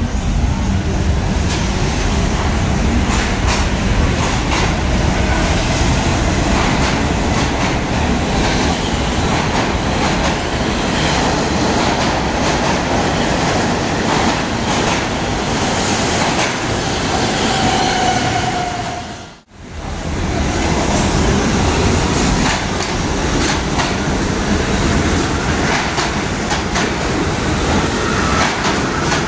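R68 subway cars running along the platform, loud and echoing, with steel wheels clattering over the rail joints and a brief squeal near the middle. The sound cuts out sharply about two-thirds of the way through, then the same loud train noise resumes.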